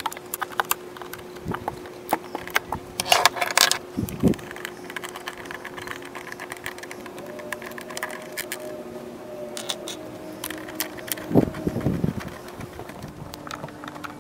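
Socket wrench clicking, with metal tools and bolts clinking, as bolts are backed out of an outboard's intake shroud. A few louder knocks stand out, one about three seconds in and one near the end, over a steady faint hum.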